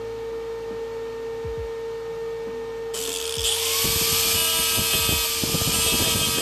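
A small handheld rotary grinder starts about three seconds in, giving a loud high hiss and a whine that rises as it spins up, then cuts off sharply near the end. Under it runs a steady hum tone.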